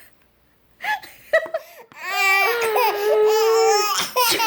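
Baby laughing at a sneeze: a few short giggles about a second in, then a long high-pitched squeal of laughter held for about two seconds, breaking into quick bursts of laughter near the end.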